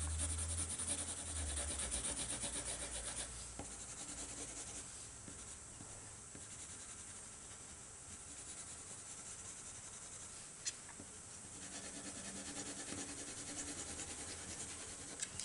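A pencil shading on drawing paper: quick back-and-forth strokes scratching over the sheet. They are louder in the first few seconds and again near the end, softer in between, with a single sharp tick about ten seconds in.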